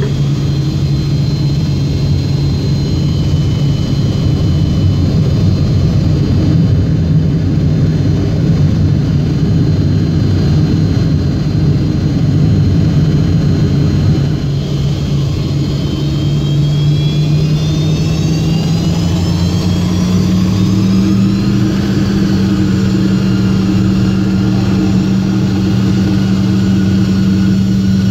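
Yak-42D's tail-mounted Lotarev D-36 turbofan heard from the cabin beside it: a steady low hum with a faint high whine, then from about halfway through both rise in pitch as the engines spool up to takeoff thrust, settling into a higher steady tone near the end.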